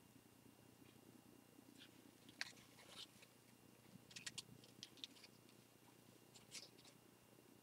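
Faint paper-towel rustling and scratching as excess glue is wiped off a cardboard model-rocket body tube, in a few short scrapes, the sharpest about two and a half seconds in and a cluster around four seconds in. A low, steady hum runs underneath.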